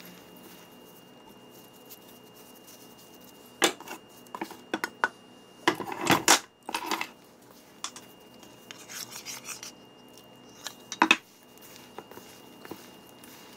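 Gloved hands mixing and kneading a chunky oat-and-bean sausage dough in a stainless steel bowl, with knocks, clinks and scrapes against the metal bowl in scattered bouts, the loudest about six seconds in and another sharp pair near the end.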